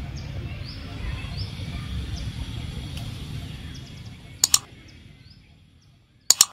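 Outdoor ambience with a low rumble and short, high, falling chirps repeating every half second or so, fading out over the last two seconds. Two sharp double clicks come about halfway through and again near the end.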